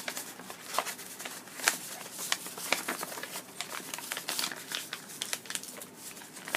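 Sheet of origami paper crinkling and crackling under the fingers as it is folded and creased, in many small irregular clicks.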